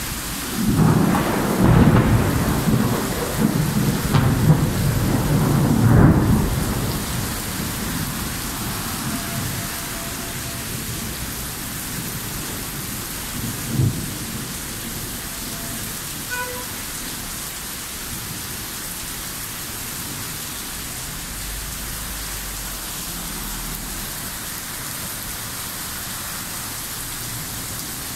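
Thunder rumbling over a steady downpour of heavy rain on a street, the rumble swelling and loudest about two and six seconds in before fading out by about eight seconds. A short low thump about fourteen seconds in; the rain then runs on evenly.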